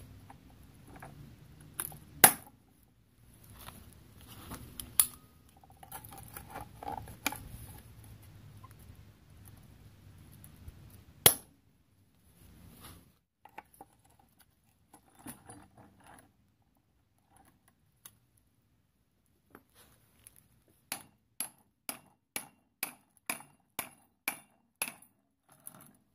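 Hand tools clinking and clanking against a rusty steel suspension arm as locking pliers and a socket are fitted to it, with several sharp metal knocks in the first half. Near the end comes a run of about ten even clicks, roughly two to three a second.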